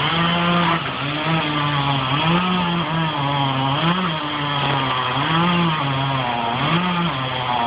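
Chainsaw running, its engine speed repeatedly rising and dipping, about once a second or so, as it cuts into wood.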